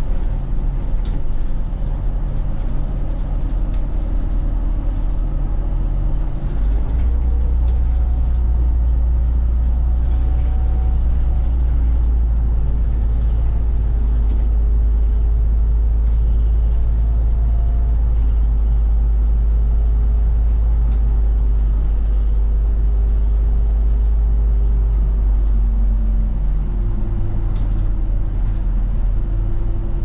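Route bus heard from inside the cabin while driving: steady engine drone and road rumble, with the engine note changing about six to seven seconds in and again near the end.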